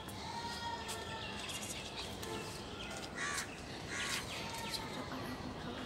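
Crows cawing some distance off, with two short, harsh caws about three and four seconds in, over a faint steady outdoor background.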